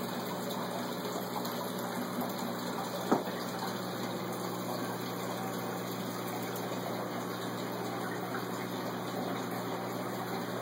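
Saltwater stock-tank aquarium's circulation running: a steady rush of water pouring in from the return line over a low pump hum. A single sharp click about three seconds in.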